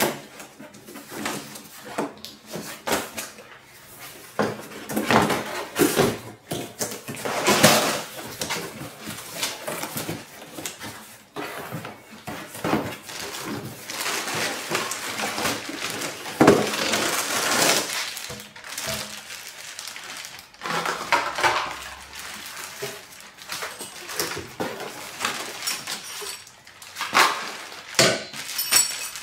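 A cardboard box and plastic wrapping being handled by hand: irregular rustling, crinkling and scraping, with the odd light knock.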